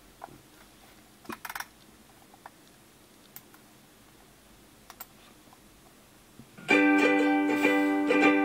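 A few faint computer clicks, then near the end music starts from the laptop's speakers: a plucked-string tune, guitar- or ukulele-like, playing back from the video being previewed in the editor.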